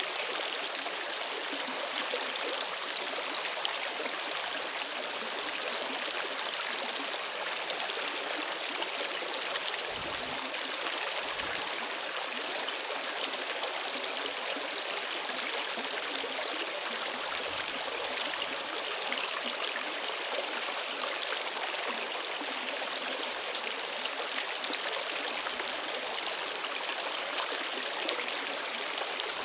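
Steady rushing of flowing water, unbroken throughout, with a few faint low bumps now and then.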